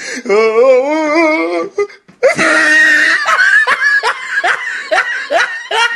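A person laughing. A long, wavering laugh comes first, then after a short break a run of quick bursts of laughter, about three a second.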